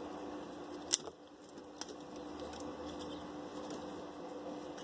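Wood fire of dry firewood burning with scattered faint crackles, one sharp pop about a second in and a smaller one shortly after.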